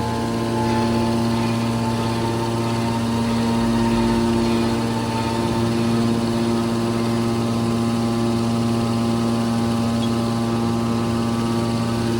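Drum baler press machine running: its hydraulic power unit's electric motor and pump give a steady, constant hum.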